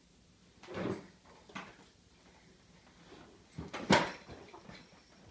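A red plastic ride-on toy knocking and bumping on a hardwood floor and against furniture as a toddler pushes it: a few separate thuds, the loudest a sharp knock about four seconds in.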